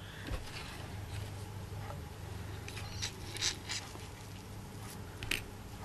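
Hands rustling and handling small scraps of ribbon, with a few light clicks and ticks about three seconds in and again near the end, over a steady low hum.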